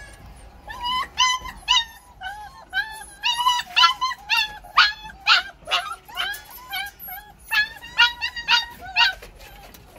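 German shepherd puppy whimpering and yelping in a rapid series of short, high cries, two or three a second, as it strains with its head stuck between the cage bars.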